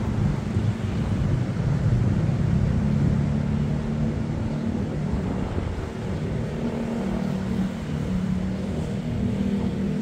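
Ocean surf and wind blowing over the microphone, with a low engine drone running underneath whose pitch wavers slightly.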